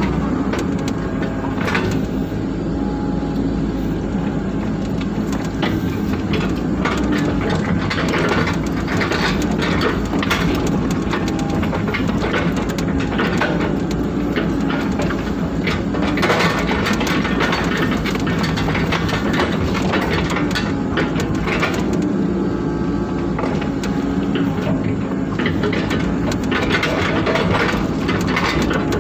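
Excavator's diesel engine running steadily under load, heard from inside the cab, with the hydraulics working and frequent knocks and rattles as the bucket digs and shifts mud.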